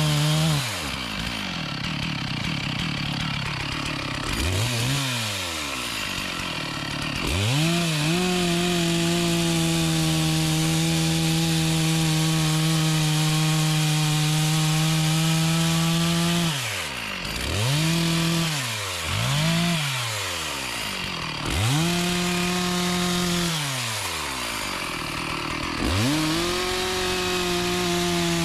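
Chainsaw cutting mahogany wood at full throttle. The engine drops off and revs back up again about seven times, and holds at full speed for the longest stretch, several seconds, in the middle.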